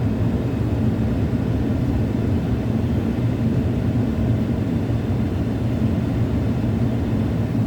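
A vehicle engine running steadily: an even low rumble with a faint steady hum over it.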